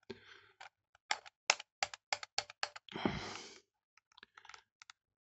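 Quick run of sharp plastic clicks, about five a second, from fingers and nails working at the stiff battery door of a Canon EF-M film SLR that sticks and will not slide open; a short rush of noise about three seconds in, then fainter scattered clicks.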